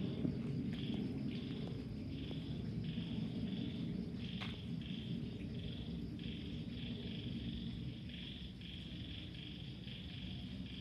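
Low, distant rumble of an Airbus A320-216's CFM56 jet engines slowly fading as the aircraft moves away after its flyover. Over it, insects chirp in short repeated pulses, about one to two a second.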